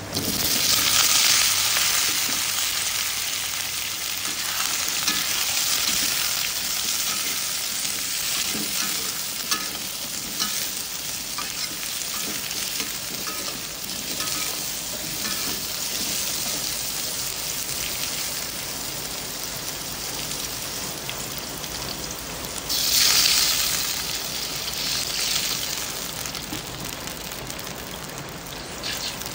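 Chunks of gourd tipped into hot oil in a metal wok, sizzling sharply at once, then frying steadily while a metal spatula scrapes and stirs them with scattered clicks. About 23 seconds in, a second loud surge of sizzling as liquid goes into the hot wok.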